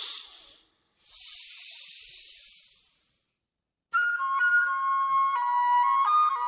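A soft high hiss for about two seconds, then about four seconds in a flute melody starts suddenly: the flute opening of a recorded Hindi song.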